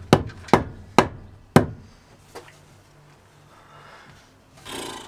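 Hammer blows on wood, knocking a wooden shelf batten into place: four sharp strikes in the first second and a half, spacing out, then a lull with one faint knock and a brief rustle near the end.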